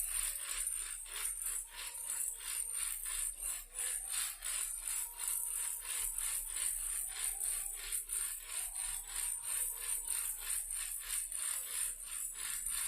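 Plastic toy car rattling, a fast, even rattle of about five strokes a second.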